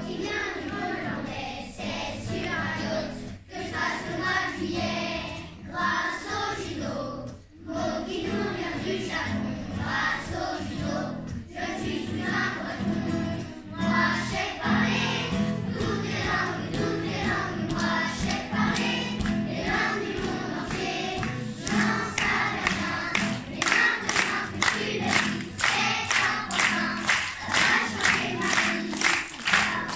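A children's choir singing a song in unison, accompanied by an acoustic guitar. Near the end a steady beat of sharp strokes, about two a second, joins in and becomes the loudest part.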